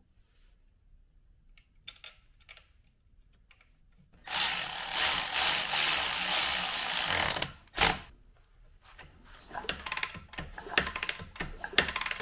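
A handheld power tool, such as a drill or impact driver, runs for about three seconds, stops, then gives one short burst, probably fastening a part during engine reassembly. A run of light metallic clicks and clinks follows.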